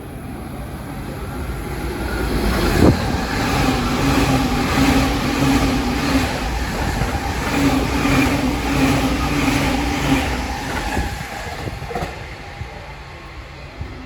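An E259 series limited express electric train passing through the station at speed: the rush of wheels on rail grows over the first few seconds, with repeated clatter over rail joints and a sharp thump about three seconds in, then fades near the end. Under the rush runs a steady electric hum from its traction equipment, the sound likened to a refrigerator.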